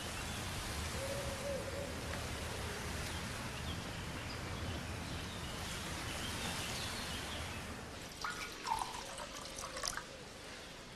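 Steady sound of running, splashing water, which stops about eight seconds in. It is followed by a few short, sharp sounds.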